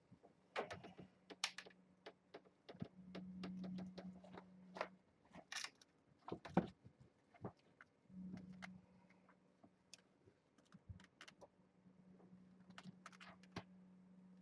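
Scattered light clicks, taps and scuffs of cats moving about and playing, with a few sharper knocks and a faint low hum that comes and goes.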